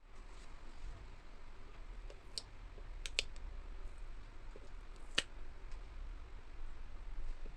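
A few sharp clicks or taps, two close together about three seconds in and the loudest about five seconds in, over a low steady hum.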